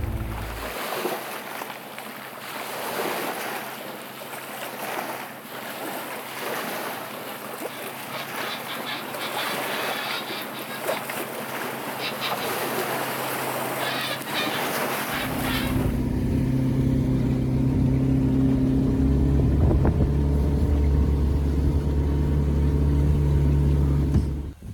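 A broad rushing noise, then from about two-thirds of the way in a boat's motor running steadily with a low, even hum.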